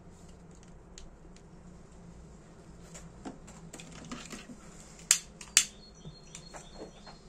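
Small metallic clicks and taps from a Dunhill Rollagas lighter being handled and reassembled. The clicks are sparse at first and come thicker in the second half, with two sharp, louder clicks about half a second apart around five seconds in.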